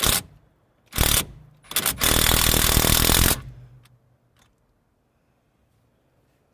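Impact wrench hammering on a tight fastener of the wheel hub: two short bursts, then a run of about a second and a half of rapid hammering that stops suddenly.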